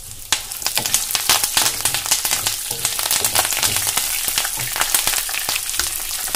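Tempering of peanuts, roasted gram, coconut slices, curry leaves and dried red chillies sizzling and crackling in hot oil in a nonstick pan while a wooden spatula stirs it. The crackling jumps up sharply just after the start and stays dense and steady.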